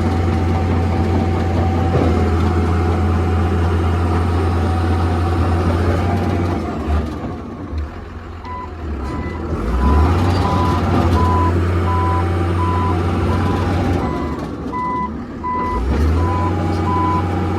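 Komatsu D41P-6 bulldozer's diesel engine running steadily, easing off briefly twice. From about halfway, the machine's backup alarm beeps at an even pace as it travels in reverse.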